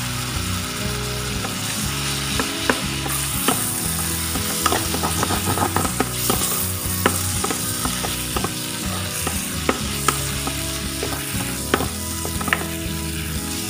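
Mee sua noodles stir-frying in a hot oiled pan: a steady sizzle, with scattered sharp clicks and scrapes as a wooden spatula tosses them against the pan.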